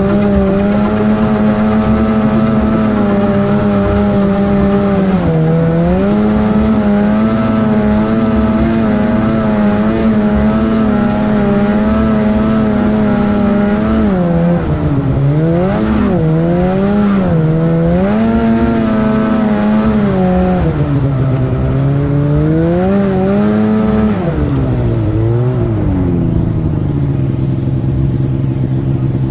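Snowmobile engine running under throttle, its pitch rising and falling as the rider eases on and off. Near the end it drops to a steady, lower idle as the sled slows to a stop.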